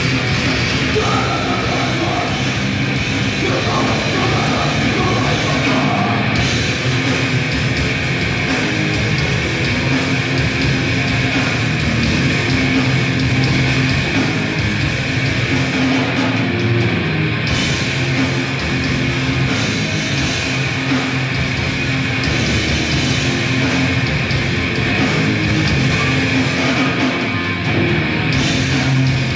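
Grindcore band playing live and loud: distorted guitars and bass over fast, dense drumming, without let-up.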